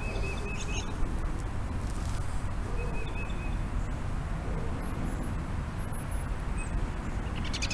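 Outdoor ambience: a steady low rumble, with a few short, high bird calls near the start, about three seconds in and near the end.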